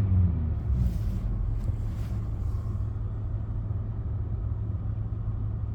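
Volkswagen Golf 6's 1.4 CGGA four-cylinder petrol engine running with a steady low rumble, a little louder in the first second. The owner is chasing a knock in this engine that shows up near 2000 rpm and disappears under sharp throttle.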